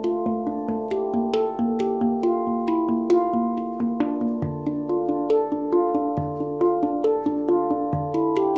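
Omana handpan in D minor played with the hands: a flowing run of quickly struck, ringing notes that overlap one another, with a deep low note sounding three times in the second half.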